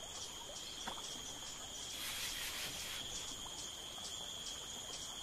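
Insects singing in a steady, high-pitched drone. A fainter, higher chirp repeats about four times a second in the second half, and a brief soft hiss comes about two seconds in.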